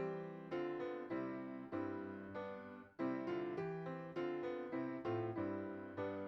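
Piano playing a slow hymn-style accompaniment of block chords, a new chord struck every half second or so and each one fading before the next.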